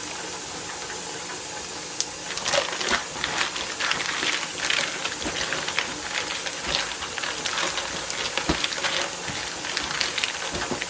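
Food-preparation handling noises over a steady background hiss: from about two seconds in, irregular crackling, rustling and light clicks as ingredients and freezer bags are handled.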